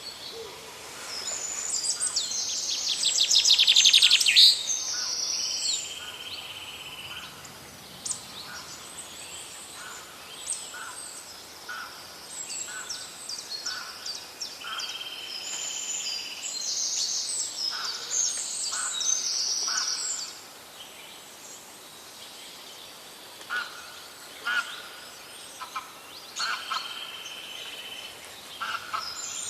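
Several forest birds singing and calling over a faint steady stream. A loud, fast trill comes about two to four seconds in, and song phrases repeat throughout.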